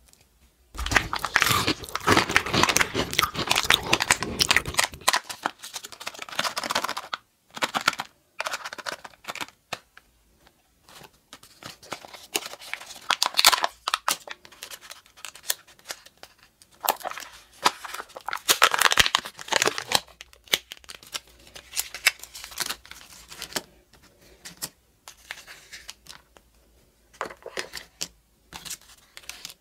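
Crinkling and tearing of a Kinder Joy egg's foil seal and plastic toy-capsule wrapping as it is handled and opened, with small plastic clicks. It comes in bursts with short pauses, densest near the start and again about two-thirds of the way through.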